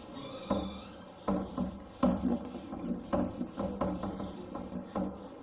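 Whiteboard duster rubbing back and forth across a whiteboard in quick, repeated scrubbing strokes, about two to three a second, as writing is wiped off.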